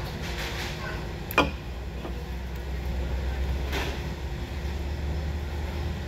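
A drink can set down on a tabletop with one sharp knock about a second and a half in, over a steady low rumble of room noise.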